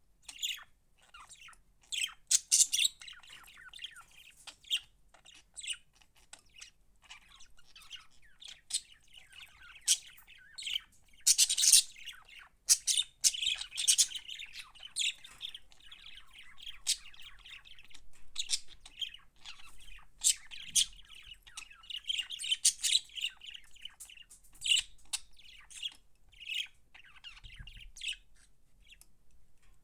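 Budgerigars chirping and chattering in a steady stream of short, sharp calls, busiest about a third of the way in.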